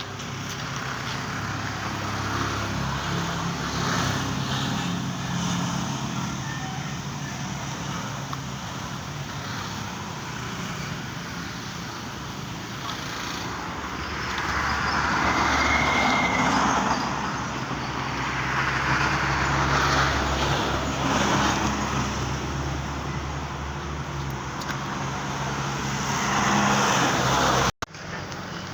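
A motor vehicle engine running steadily, with louder swells like passing traffic about halfway through and again near the end, and a brief cut just before the end.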